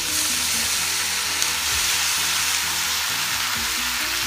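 Chopped vegetables and chorizo sizzling steadily in a hot iron kadai pan over charcoal, the hiss boosted by a large glass of white wine just poured into the hot pan.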